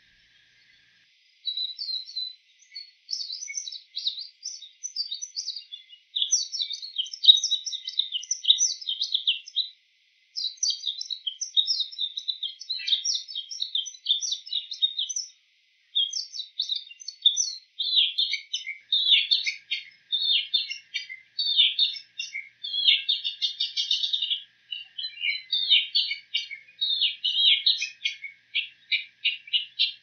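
Bull-headed shrike singing a rapid, varied, high-pitched twittering song made of mimicked calls of other birds, with a couple of short pauses.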